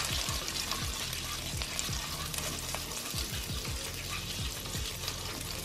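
Butter sizzling steadily as it melts and foams in a hot nonstick skillet, stirred with a whisk: the butter going in to start a roux.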